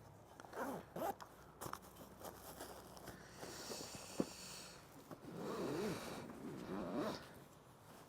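Backpack zipper drawn closed in one long rasp about three seconds in, among rustling and knocks of gear being handled and packed away.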